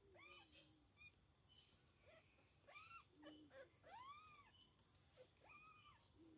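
Newborn kitten mewing faintly: about five short, high mews, each rising then falling in pitch. A faint steady chirring of insects runs behind.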